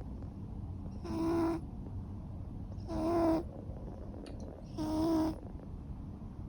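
Ragamuffin cat snoring in its sleep: three short, pitched snores at an even rhythm, about two seconds apart.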